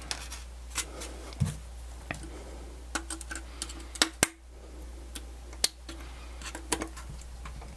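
Irregular small clicks and taps of a screwdriver tip and small metal and plastic parts as a personal cassette player's tape mechanism is worked apart by hand, the sharpest click about four seconds in.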